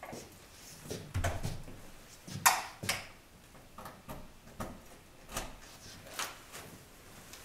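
Footsteps with scattered light knocks and rustles of a person walking in, the sharpest knock about two and a half seconds in.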